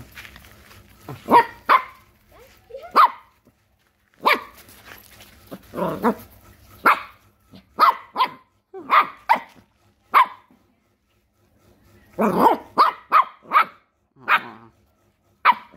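Puppy barking over and over in short, sharp single barks at irregular intervals, with a quicker run of barks about three-quarters of the way through.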